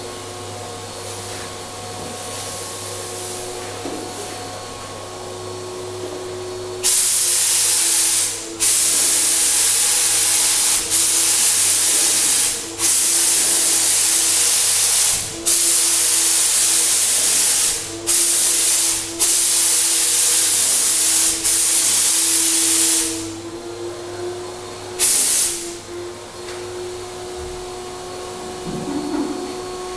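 Graco 9.5 HVLP turbine sprayer atomising paint: the turbine runs with a steady tone throughout, and from about a quarter of the way in the spray gun hisses loudly in a string of trigger pulls of one to three seconds each with short breaks, then one last short burst.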